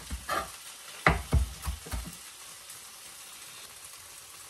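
Chef's knife chopping cilantro on a wooden cutting board: about six sharp knocks in the first two seconds, then only a faint steady hiss.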